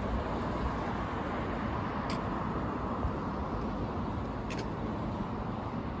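Steady outdoor background noise: a low rumble and hiss of distant road traffic, with two faint ticks.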